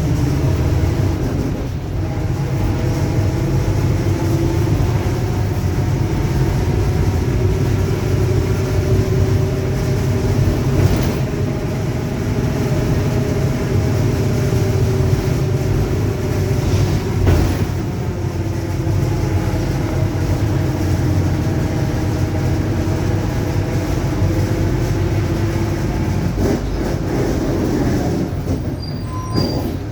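Mercedes-Benz OF-1721 BlueTec 5 city bus running along, with a steady low diesel rumble and a whine from the rear differential. The whine is made of several tones that slowly rise and fall and fade out near the end.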